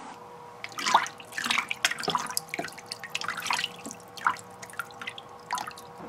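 Water in the ice-chest tank splashing and dripping in a series of irregular small splashes, starting about half a second in, over a faint steady hum.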